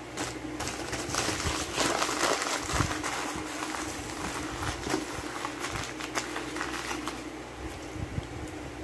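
Brown paper bag being crumpled and crinkled by hand, a busy run of crackles that is loudest in the first few seconds and thins to occasional crinkles later.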